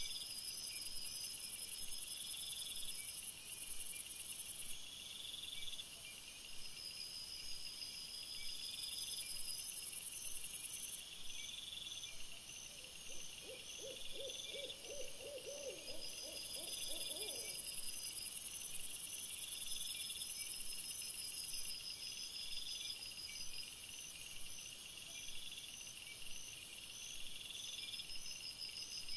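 Night insect chorus: rapid, evenly pulsed chirping keeps on throughout, with a higher shrill layer that swells and drops away in long stretches. Around the middle, a series of about a dozen short, evenly spaced low calls from an animal sounds over it.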